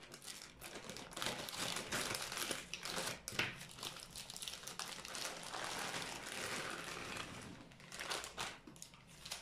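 Clear plastic bag of almonds crinkling as it is handled and emptied, with the almonds spilling out onto a cloth in an irregular run of small clicks and rustles.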